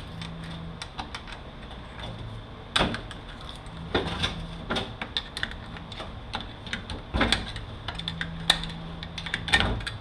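Metal parts of a 545RFE transmission's clutch pack, snap rings and plates, clicking and clattering irregularly as they are pried out and handled on the bench, with a few louder knocks.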